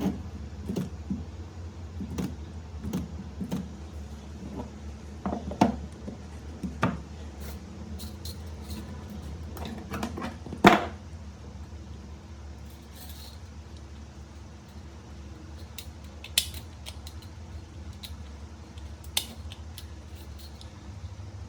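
Irregular light clicks and clinks of small hard objects being handled and set down, the loudest about ten seconds in, over a steady low hum.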